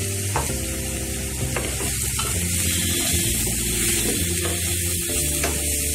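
Onions and freshly added ground spices sizzling in hot mustard oil in a kadhai, stirred with a spatula that scrapes and knocks against the pan a few times.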